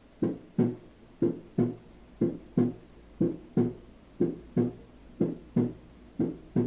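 Normal heart sounds, a steady lub-dub: two thumps per beat, the first (S1) and second (S2) heart sounds, about one beat a second, seven beats in all.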